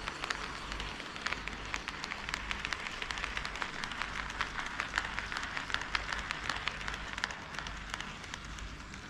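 HO-scale model train running on KATO Unitrack: a steady rolling hiss of metal wheels on rail with quick irregular clicks as the wheels cross the track joints, over a low hum.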